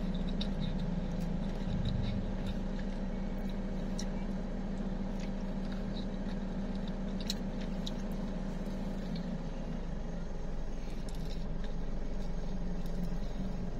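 Steady low hum of a car idling, heard inside the cabin, with faint scattered clicks of chewing and handling food.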